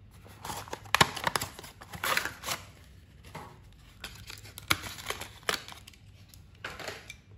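A cardboard window box being opened and a small die-cast toy cement mixer truck pulled out of its packaging insert: irregular rustling and crinkling of card and plastic, with sharp clicks and taps, the loudest about a second in.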